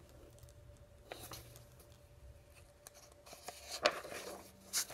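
Paper pages of a picture book being handled and turned: soft rustling, with two sharper paper flicks about four seconds in and just before the end.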